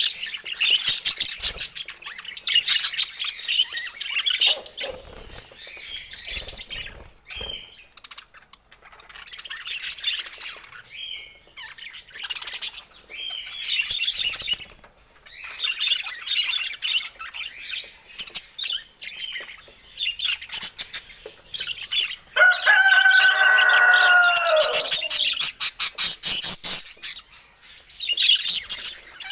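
Budgerigars chattering and chirping in quick runs, with a louder, harsher call lasting about three seconds a little past the two-thirds mark.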